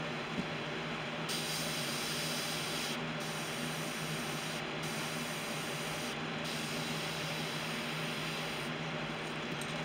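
Iwata airbrush hissing as it sprays paint in four bursts, the trigger released briefly between them, starting about a second in and stopping near the end. A steady low hum runs underneath.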